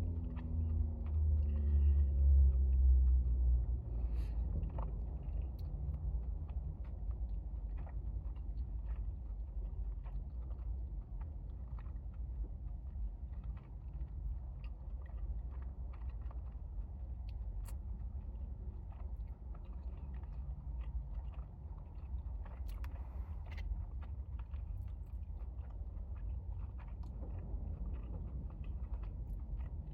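A person eating noodles close to the microphone: a steady run of small wet chewing clicks and smacks over a low rumble. The rumble is louder in the first few seconds.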